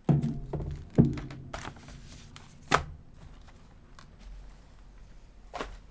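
A ripped cardboard box being handled and put aside: a few knocks and thumps with rustling between them, the loudest about a second in.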